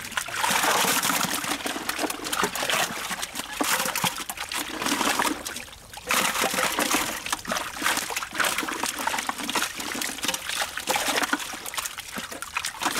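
Live fish crowded in a net in shallow water, thrashing and splashing, with many quick small splashes as hands scoop among them. The splashing eases briefly about six seconds in, then picks up again.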